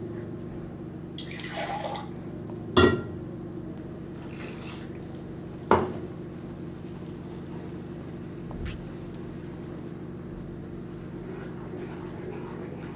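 Wooden spatula stirring coconut paste and water into curry masala in a non-stick pan: soft scraping and sloshing, with two sharp knocks of the spatula against the pan about three seconds apart. A steady low hum runs underneath.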